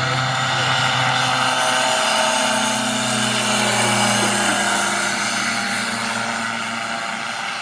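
Propeller-driven biplane making a low smoke-trailing pass: a steady engine drone that grows, then drops slightly in pitch and fades as the plane goes by.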